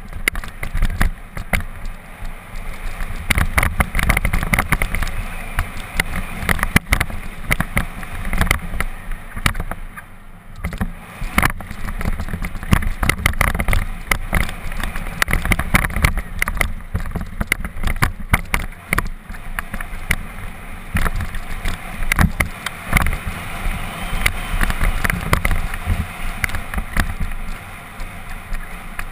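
Mountain bike ridden fast down a rocky dirt trail: the bike rattling and knocking over stones and roots, tyres on loose dirt, under a heavy rumble of wind on the camera microphone.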